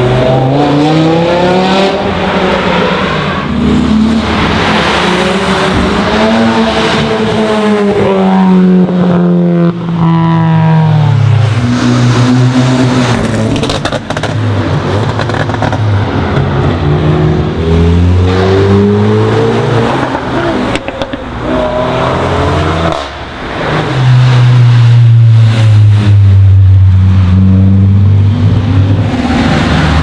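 Several sports and classic cars accelerating past one after another, their engines revving up and dropping again as they shift and pass. From about 24 s a deep, steady engine drone is the loudest sound.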